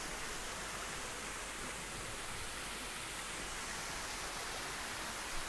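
Steady, even hiss of background noise, with no speech, music or distinct events.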